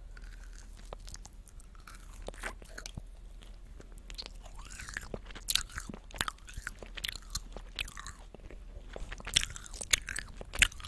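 Close-miked chewing of a gummy candy: biting into it, then sticky, wet mouth smacks and clicks, scattered and irregular, with louder clusters about halfway through and near the end.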